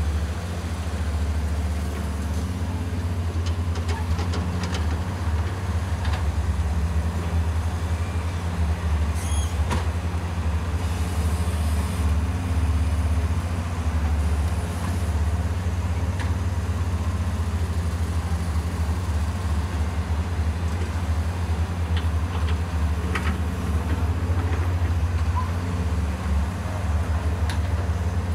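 Diesel engines of excavators digging and loading sand, a steady low drone, with a few sharp knocks.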